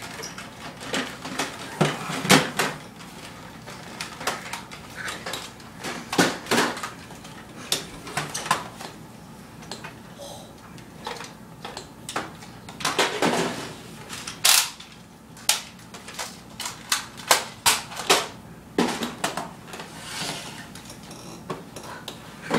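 Plastic toy foam-dart blasters being handled: irregular sharp plastic clicks and clacks, some in quick clusters, as the blasters are worked and set down on a table.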